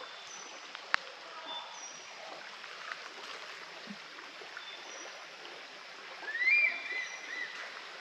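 A stream running steadily, with small birds chirping high over the water. A sharp click about a second in, and one louder call that rises and then holds, about six and a half seconds in.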